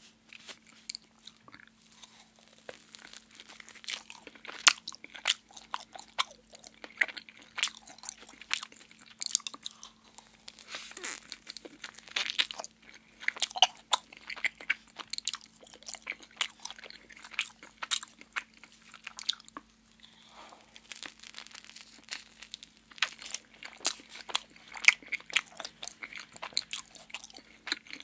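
Close-miked mouth sounds of biting and chewing soft cream-filled donuts: many quick, irregular, sharp clicks, with a short lull about two-thirds of the way in. A faint steady hum runs underneath.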